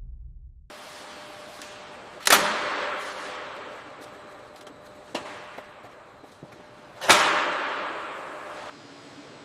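Two sharp, loud bangs about five seconds apart, each dying away slowly in a long echo, with a fainter click between them, over a faint steady noise.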